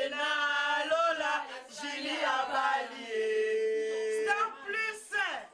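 Women's high voices in a drawn-out, sing-song chant, with a long held note in the middle and a sharp falling swoop near the end.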